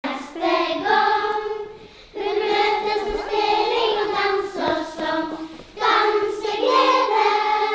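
Children's choir singing, in several sustained phrases with short breaks between them.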